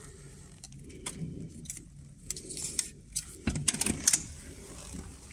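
Sharp metallic clicks and rattles from a hotel room door's electronic card-key lock and lever handle as the door is unlocked and opened, the loudest cluster of clicks coming near the end.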